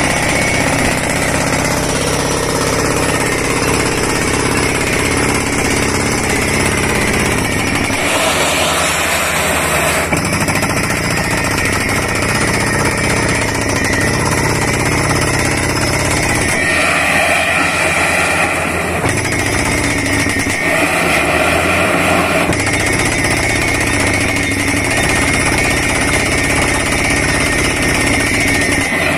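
Borewell drilling rig's down-the-hole air hammer drilling: a loud, steady, rapid hammering over the running engine and air compressor, as compressed air blows dust and rock cuttings out of the hole.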